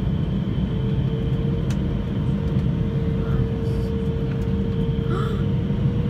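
Jet airliner cabin noise heard from a window seat: a steady low rumble of engines and airflow with a constant hum running through it.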